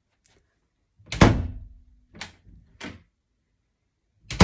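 A house door opening and closing: a loud thud as it shuts about a second in, two smaller clicks after it, and a second loud thud at the very end.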